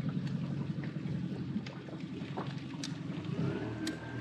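Outboard motor of a small inflatable boat running steadily, with some wind on the microphone and a few light knocks. About three seconds in the motor's note shifts and a high whine rises and then holds steady.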